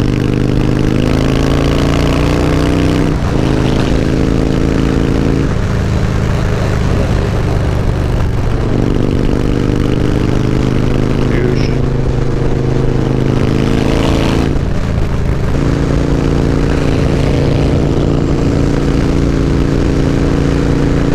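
Harley-Davidson Low Rider S's 110-cubic-inch V-twin running at highway speed under a rider, with rumbling wind noise. Its steady note breaks off and changes briefly a few times, most clearly about three seconds in and again near fourteen seconds.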